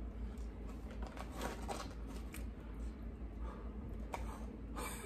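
A person chewing a crispy breaded chicken nugget, with faint, irregular crunches.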